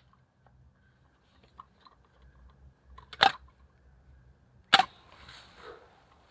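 Camping gear being handled and packed away: faint small ticks, then two sharp clicks about a second and a half apart, the second followed by a short soft rustle.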